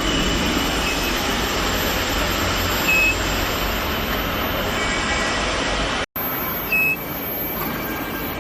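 Steady industrial machinery noise, a dense even din, with two short high-pitched beeps, about three seconds in and again near the end. The sound drops out for an instant about six seconds in.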